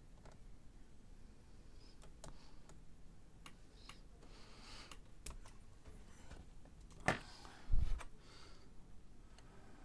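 Small clicks and brief scraping sounds of IR retroreflective tape being cut to size and handled, with a louder click about seven seconds in and a low thump just after it.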